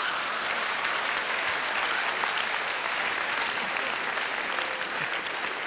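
Theatre audience laughing and applauding steadily after a joke's punchline.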